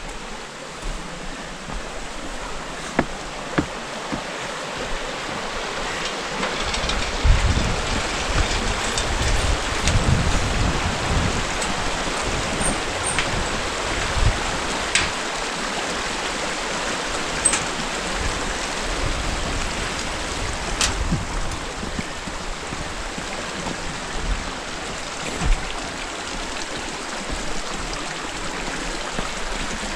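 Shallow river rushing over rocks, a steady wash that swells to its loudest midway. Over it come scattered footsteps and sharp clicks from walking across a steel-mesh suspension bridge.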